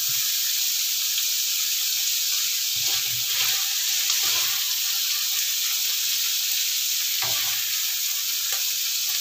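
Sliced bitter gourd and onion sizzling as they stir-fry in oil in a non-stick pan, with a wooden spatula stirring through them a few times.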